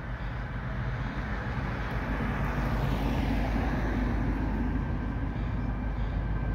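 Narrow-gauge diesel locomotive's engine running steadily as the train approaches slowly, a low rumble that swells a little in the middle.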